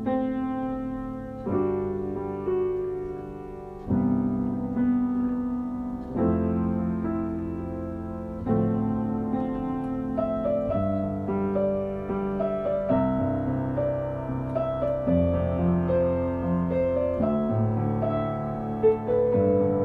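Outro music: solo piano playing slow chords, each struck and left to ring before the next.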